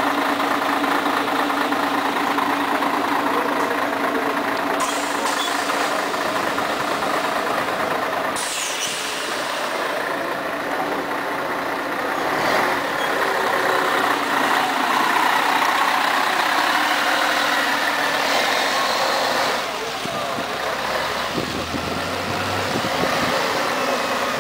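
Scania CN113ALB articulated city bus's diesel engine running at idle, with a sharp air hiss about eight seconds in. The engine then grows louder as the bus pulls away, and it drops off as the bus moves away.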